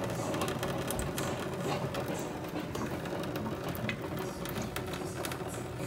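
Kitchen faucet running in a thin stream into a stainless steel sink, a steady patter with small ticks throughout.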